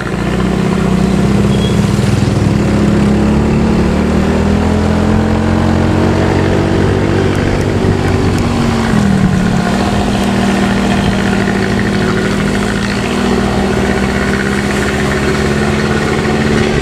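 Bus's diesel engine running through a loud 'snoring' (ngorok) exhaust, a steady deep drone whose pitch dips briefly about nine seconds in and then holds again.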